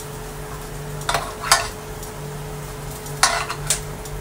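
A metal spoon clinks against a frying pan about four times while diced carrot is spooned in among onions frying lightly. A steady low hum runs underneath.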